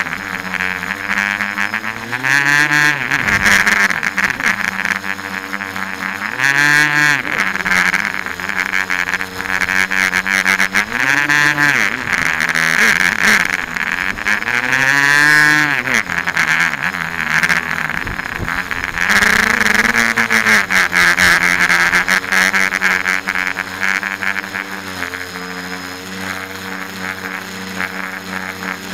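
A tricopter's electric motors and propellers whining, heard from the onboard camera, the pitch swinging up and down about five times as the throttle changes during flips and dives.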